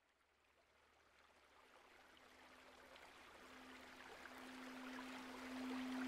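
Rushing river water fading in from near silence. About one and a half seconds in, the single steady hum of a crystal singing bowl comes in; it wavers at first, then holds and grows louder.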